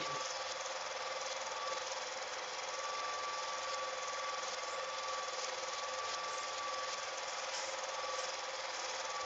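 Home-movie film projector running: a steady, rapid mechanical clatter from the film transport, with a thin whine that comes and goes.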